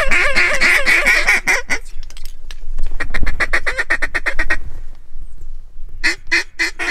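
Mallard duck call blown close by: fast runs of short chattering notes, broken by a pause, then near the end a string of loud quacks about four a second, calling to ducks over the decoys.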